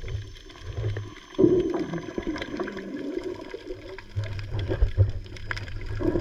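Underwater water noise heard through a submerged camera: a muffled rumble with bubbling and scattered sharp clicks, growing louder about a second and a half in.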